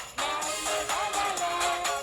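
Upbeat 1990s K-pop dance song playing, with a steady dance beat and melody; the music drops out for a moment just at the start, then carries on.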